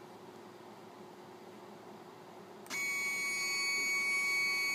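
Stepcraft 840 CNC router's stepper motors starting to drive the gantry toward its home position: a sudden steady high-pitched whine of several tones begins a little over halfway through. Before it only a faint low hum is heard.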